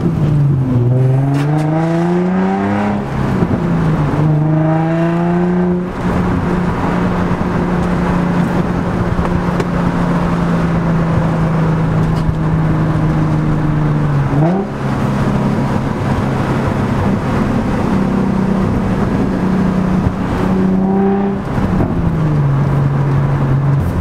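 Infiniti G35 coupe's 3.5-litre VQ35 V6 pulling through the gears, heard from inside the cabin. The engine note climbs, falls at an upshift about three seconds in, and climbs again. It then holds steady while cruising, dips sharply around the middle, and rises and falls once more near the end.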